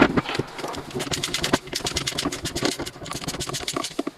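Quick, irregular clicking and knocking from hand work on the alternator, with a sharp knock at the start and another about one and a half seconds in, over a low steady hum.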